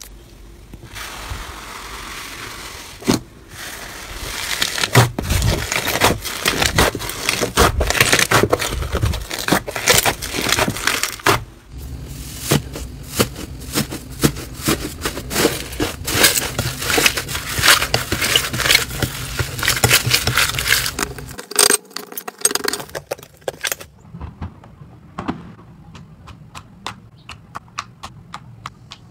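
Hands kneading, pressing and poking several slimes in turn, making dense runs of sticky clicks, pops and crackles. The sound changes character about a third and two thirds of the way through, and near the end it thins to sparse separate clicks.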